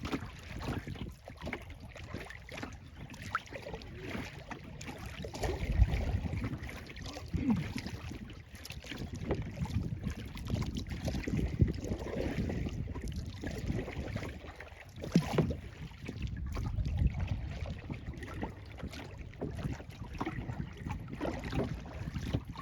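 Kayak paddling on a lake: the paddle dipping and splashing at uneven intervals and water lapping against the hull, with wind rumbling on the microphone.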